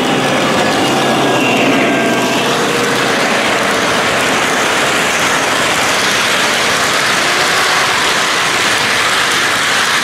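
Model freight cars' metal wheels rolling and clattering along three-rail track as the train passes close by, a steady loud clatter.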